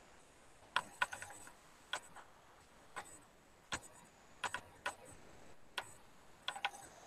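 Sharp, irregularly spaced clicks of a computer being operated, about a dozen, some coming in quick runs of two or three.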